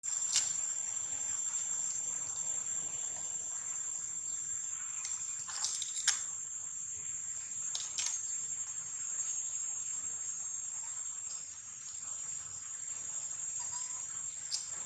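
Steady high-pitched insect drone with a few short sharp clicks, the loudest about six seconds in.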